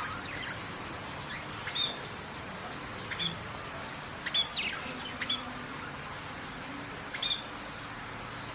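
Birds calling: short, high chirps, some sweeping quickly downward, every second or two over a steady background hiss.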